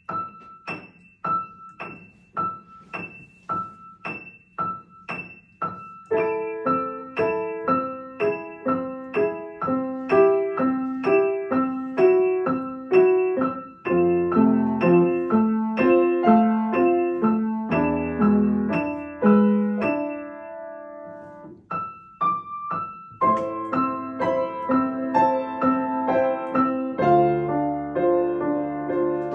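Upright piano played four hands as a duet. It opens with a single high note struck steadily about every two-thirds of a second, lower parts join about six seconds in, and a bass line enters near fourteen seconds. The music thins to a held low chord around twenty seconds before fuller chords resume.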